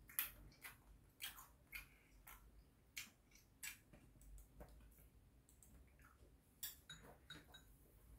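Quiet eating sounds: about a dozen soft, scattered clicks and taps of metal chopsticks and a spoon against ceramic bowls and a plate, with chewing.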